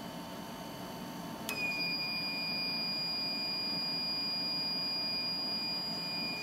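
Induction heater's alarm buzzer: after a click about a second and a half in, a steady high-pitched beep tone comes on and holds, over a low steady hum. The owner suspects an air bubble in the water-cooling loop is setting off the alarm.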